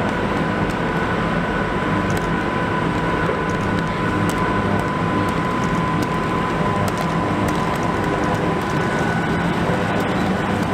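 Electric train running under an icy overhead wire: a steady rumble with a constant high whine, and scattered sharp crackles from the pantograph arcing as it slides along the ice-coated contact wire.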